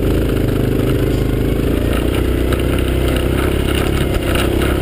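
Quad bike (ATV) engine running steadily at low revs close by, its pitch wavering slightly as it moves off slowly.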